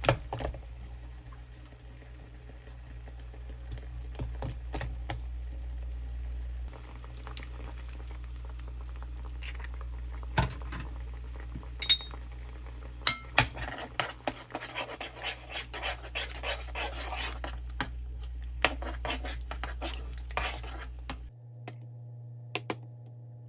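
Kitchen utensils clinking and scraping against dishes and pans. There are scattered sharp clicks, a ringing clink about twelve seconds in, and a stretch of busy scraping and stirring after it, over a steady low hum.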